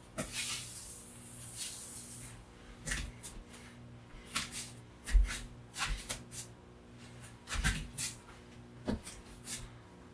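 About a dozen scattered clicks and knocks of small objects being handled, over a steady low electrical hum.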